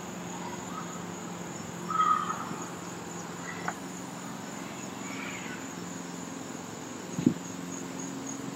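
Outdoor ambience with a steady high-pitched insect buzz. A brief chirp comes about two seconds in, and a short low thump near the end.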